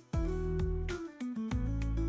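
Background music with plucked guitar and a heavy bass line.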